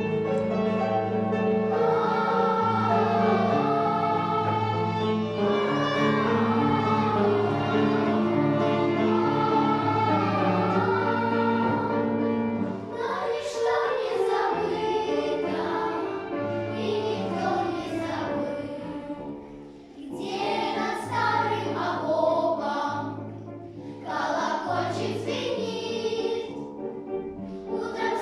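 A choir singing a song over instrumental accompaniment with a steady bass line. Long held notes for the first dozen seconds or so, then quicker phrases with crisp consonants.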